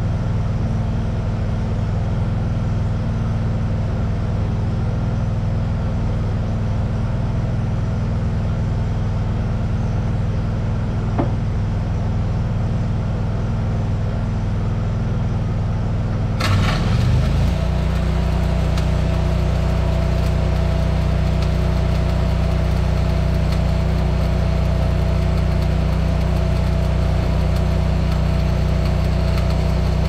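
An engine running steadily. About 16 seconds in, after a brief clatter, it changes to a different, slightly louder steady running.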